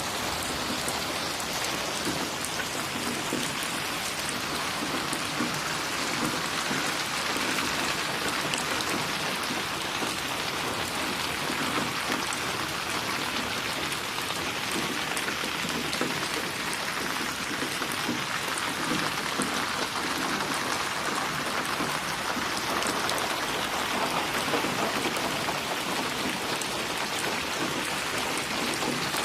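Steady rain falling, with individual drops splashing throughout.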